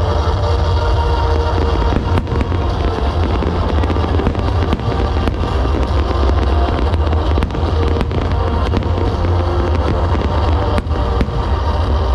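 Fireworks display, shells bursting and crackling with sharp cracks every second or two, over a continuous deep low rumble. Music is playing loudly alongside.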